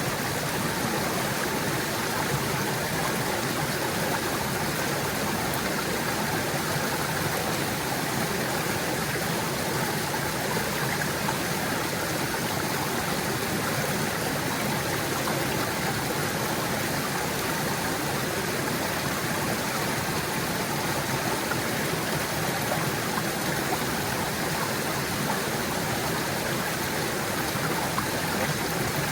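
A small stream gurgling, its water running steadily over the streambed.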